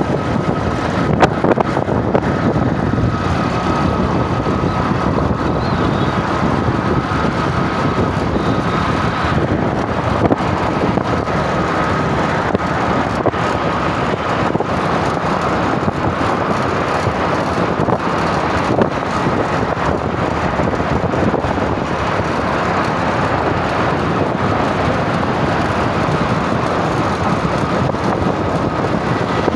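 Steady road and traffic noise from passing vehicles, with wind rumbling on the microphone.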